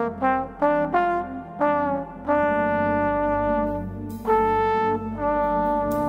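Trombone playing a melody: a run of short notes in the first two seconds, then longer held notes, over a steady low keyboard and bass backing.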